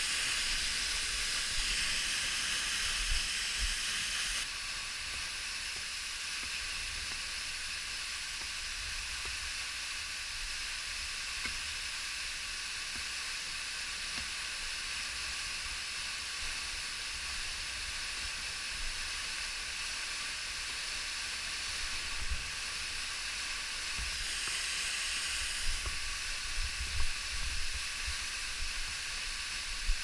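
Waterfall rushing close by: a steady hiss of falling water and spray, with low rumble and a few short knocks near the end.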